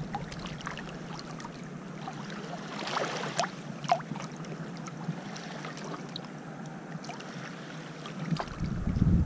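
Small waves lapping at a pebbly lake shore, with little splashes and trickles over the stones, a few sharper splashes about three to four seconds in. A low rumble comes in near the end.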